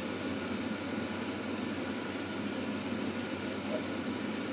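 Steady room noise, an even hum and hiss with no sudden sounds, of the kind an air conditioner or fan makes in a small room.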